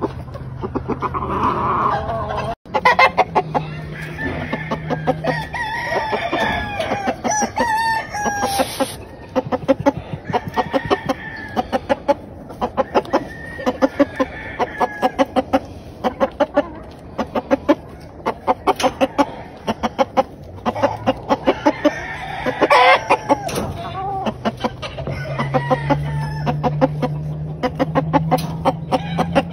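Roosters crowing several times, the loudest crow a little past the middle, over steady rapid clucking from penned chickens.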